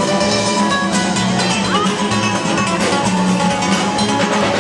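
Dance music with a prominent guitar, playing loud and continuously.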